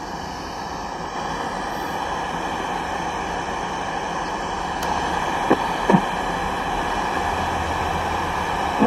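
Steady static hiss from a National portable radio's speaker as its tuning knob is turned between stations, growing slightly louder, with two short knocks about five and a half and six seconds in.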